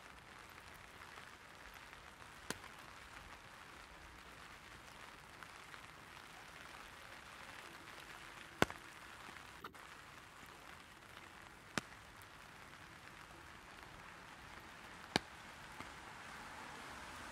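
Light rain pattering steadily on an umbrella, with a few louder single drops tapping sharply on it. The hiss grows a little louder near the end.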